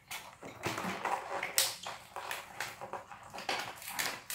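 Hands working with taped cardboard boxes: irregular light taps, knocks and rustles.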